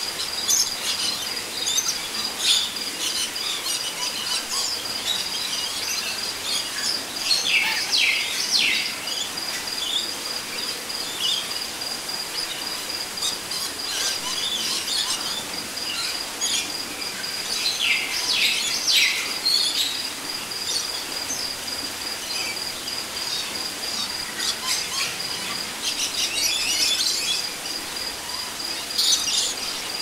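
Forest ambience: a high, steady insect trill that does not let up, with birds calling over it in several bursts of quick calls.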